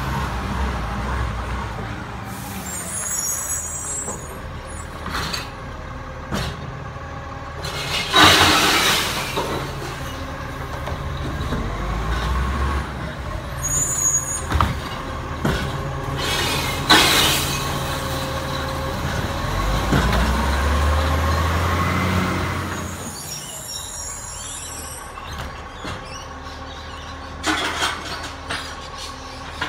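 Diesel engine of an Iveco Acco side-loading garbage truck running steadily as the truck moves slowly along. Three sharp air-brake hisses break through, about 8 seconds in, about 17 seconds in and near the end. Faint bird chirps come in now and then.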